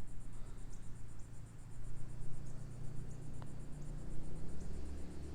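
Insects chirping in a fast, even, high-pitched pulse, with a low rumble underneath.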